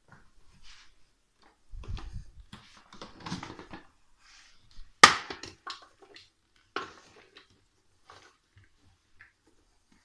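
Plastic handling noises from a Toshiba VC-222 vacuum cleaner's hose and floor nozzle: scattered knocks, clicks and rustles as the hose is fitted into the nozzle and the nozzle is set on a tiled floor. The sharpest, loudest knock comes about five seconds in. The vacuum's motor is not running.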